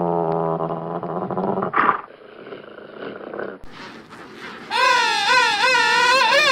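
Animal calls: a low, steady pitched call for the first two seconds ending in a loud burst, then, after a quieter stretch, a higher call whose pitch wavers up and down several times a second.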